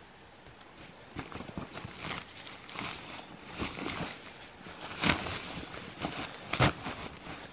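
Plastic bags and backpack fabric rustling and crinkling as bags are stuffed into a backpack by hand, with two sharper, louder crinkles about five and six and a half seconds in.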